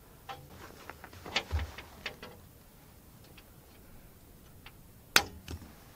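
Wire cutters snipping off the excess copper grounding wire at a lug: a few light clicks as the tool is set on the wire, then one sharp snap about five seconds in as the wire is cut.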